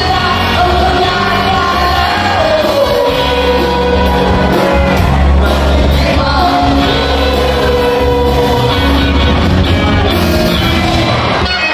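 Live band playing a pop-rock song: singing over electric guitars, bass, drums and a horn section of trumpets and saxophones, with shouting mixed in.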